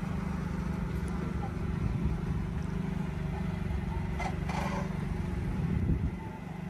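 Truck engine idling steadily with an even low hum, fading somewhat about six seconds in.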